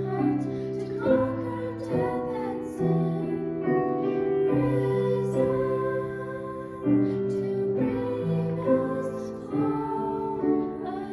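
A female voice singing a slow song with piano accompaniment, holding long notes over piano chords.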